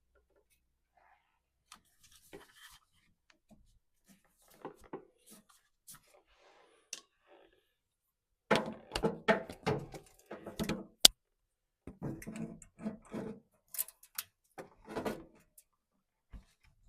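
Irregular clicks, knocks and clatter of hand work on washing machine parts, densest in the second half, with one sharp click about eleven seconds in.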